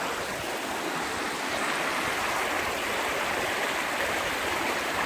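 Shallow mountain brook babbling over rocks: a steady rush of running water.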